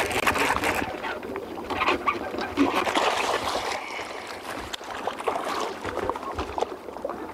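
A hooked largemouth bass thrashing and splashing at the surface beside a boat while the angler fights it, with water sloshing against the hull. The noise comes and goes irregularly.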